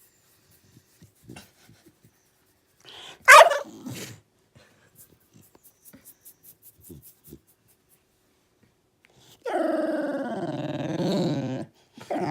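Puppy making vocal noises. A short sharp yelp comes about three seconds in, then a few faint ticks, then a long wavering drawn-out call of about two seconds near the end.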